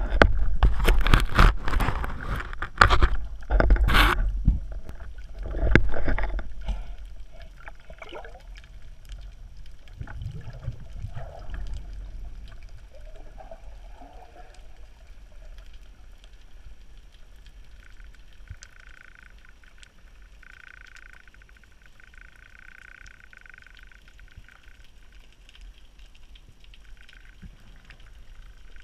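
Underwater noise heard through a camera housing during a breath-hold spearfishing dive: water rushing over the housing with knocks and clicks for the first several seconds, then a quiet underwater background with scattered clicks. A faint hum comes and goes in the second half.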